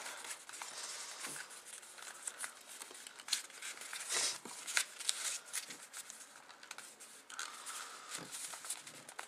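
Sheet of paper being rolled and creased by hand around a paper tube, crinkling and rustling in short, irregular bursts.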